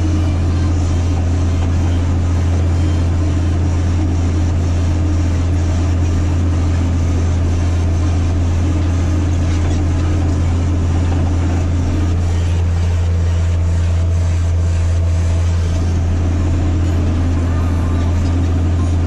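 Massey Ferguson 8210 tractor's diesel engine running steadily under load while pulling a disc harrow, a deep even drone.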